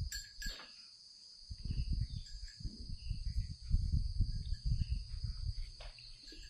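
Insects droning steadily at a high pitch, under irregular low rumbling that comes and goes through the middle, with a couple of sharp clicks near the start and another near the end.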